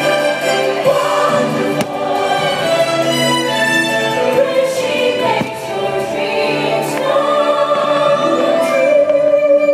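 Orchestral music with a choir singing held notes.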